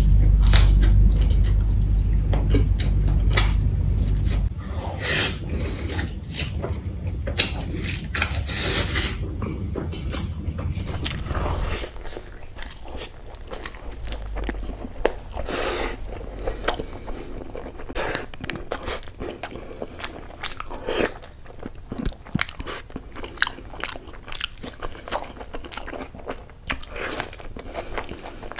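Close-miked mukbang eating: a man biting into and chewing chicken on the bone and other food eaten by hand, with many sharp mouth clicks. A low steady hum sits under the first twelve seconds and stops abruptly.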